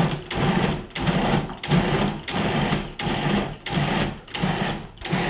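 Electric food processor pulsed in short, evenly spaced bursts, about one and a half a second, its motor whirring up and stopping each time as the blade cuts frozen butter cubes into flour for pie crust dough.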